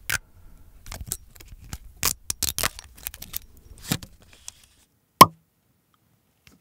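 Close-up handling of a small bottle of sesame oil: a run of light plastic clicks and taps as fingers work at its cap, then one loud sharp click about five seconds in.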